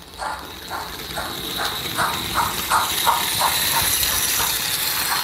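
Märklin S 3/6 H0 model steam locomotive, fitted with an ESU sound decoder, playing steam chuffing through its small speaker as it runs. There are about two to three chuffs a second, quickening slightly and growing louder, over a steady high whine.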